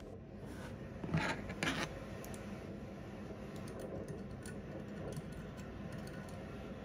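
Light scratching and scraping from handling a 1:200 scale model airliner, with two short louder scrapes a little after a second in. A thin tool is then rubbed against the model's small engine fan to turn it.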